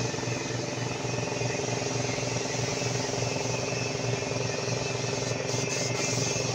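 Compressed-air paint spray gun hissing as it sprays a car body, over a steady machine hum with a pulsing low drone.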